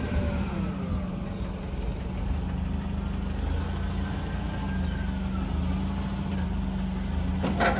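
Forklift engine running steadily as it carries a stack of wooden pallets onto a flatbed trailer, with a faint whine that rises and falls. A single sharp knock near the end.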